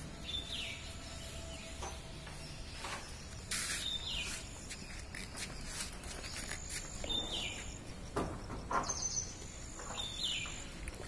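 A bird repeating a short falling call about every three seconds, over a low steady background rumble with a few brief rustles.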